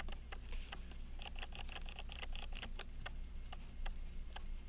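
Pocket watch movement running, its escapement ticking steadily at about five beats a second. Faint small handling scratches come in about a second in and last for a second or so.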